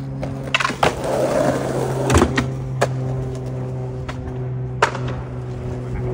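Skateboard on rough asphalt: the board dropped down with a couple of clacks, wheels rolling, then a sharp pop about two seconds in and further clacks and a landing smack near five seconds as the skater rides onto a low ledge and rolls away.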